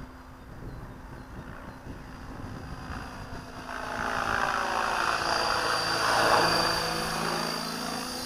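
Align T-Rex 600 flybarless RC helicopter flying past, its rotor noise swelling about three seconds in, loudest near six seconds, then easing off, with a steady high whine above it.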